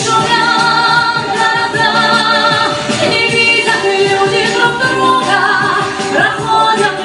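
Music: the opening of a Russian song, a melody line with strong vibrato over a full accompaniment, before the lyrics begin.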